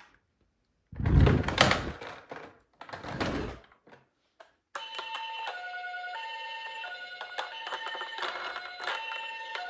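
Two bursts of rough handling noise, then about halfway in a toy emergency vehicle's electronic siren starts, a sound chip stepping back and forth between a few fixed tones in a high-low pattern.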